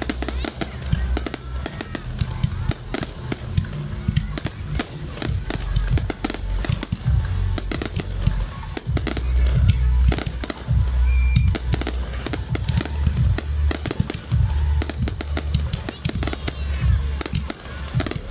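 Fireworks display: a dense, continuous run of sharp bangs and crackles over deep rumbling shell bursts.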